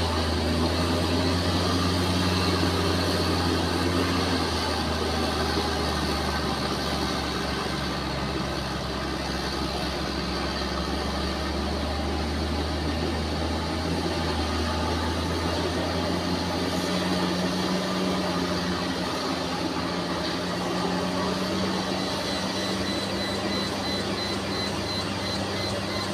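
Bulldozer's diesel engine running steadily with a deep, even hum that rises and falls slightly in pitch now and then.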